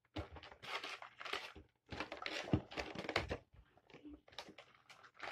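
Packaging of a Pokémon card box rustling and crinkling as it is handled and opened, in short irregular bursts.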